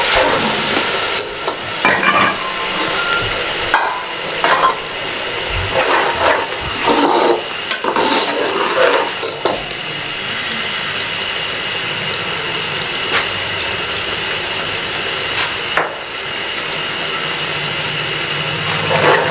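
Steel ladle stirring and scraping a frying tomato and green-chili masala in an aluminium pot, with irregular knocks against the pot during the first half. Then the masala sizzles and bubbles steadily on its own, being fried down (bhunai) so that its water cooks off.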